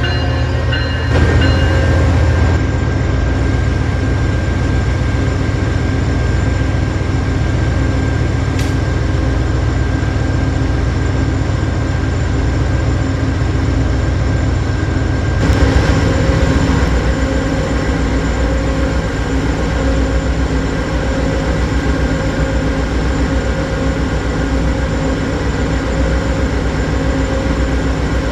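Diesel train locomotive running with a steady low rumble and a steady whine over it, swelling briefly about a second in and again about fifteen seconds in.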